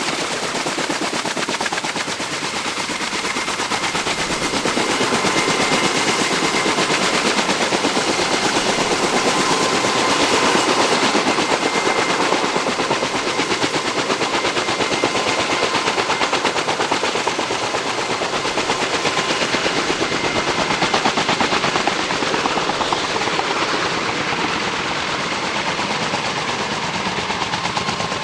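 Kaman K-MAX helicopter's intermeshing twin rotors beating in a loud, rapid, steady chop, with a thin steady whine from its turboshaft engine running underneath.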